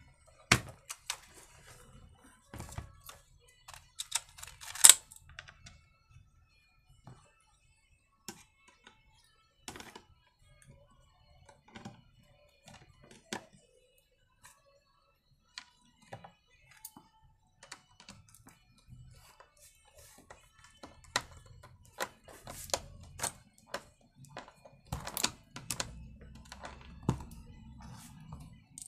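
Irregular clicks, taps and knocks of hand work on a chainsaw at a wooden workbench: its plastic housing parts being handled and fitted, and small tools and screws picked up and set down. One sharp knock stands out about five seconds in, and the clatter gets busier near the end.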